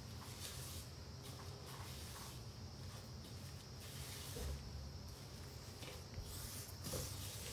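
Faint scraping and squishing of a spatula stirring a thick scone batter of flour and fresh cream in a bowl, over a low steady hum.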